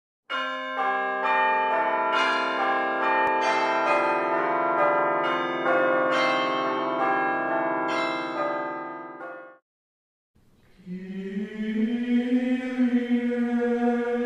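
Church bells pealing, many overlapping strikes ringing on, until they stop about nine and a half seconds in. After a brief gap, a voice begins singing.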